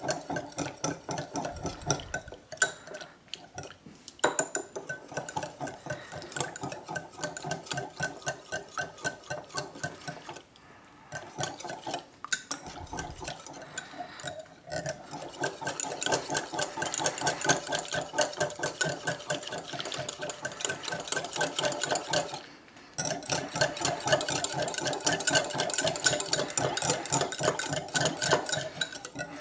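A utensil stirring rapidly in a small container of water, clinking steadily against its sides to dissolve a lump of soap paste, with a few short pauses.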